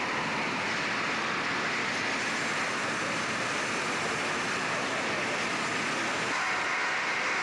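Steady, even mechanical din of locomotive repair shop machinery, with no distinct beat, tone or knock.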